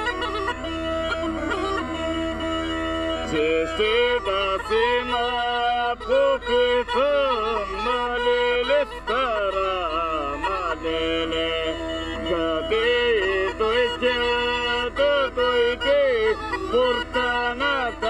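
Bulgarian folk bagpipe music: a bagpipe plays a fast, heavily ornamented melody over a steady, unbroken drone.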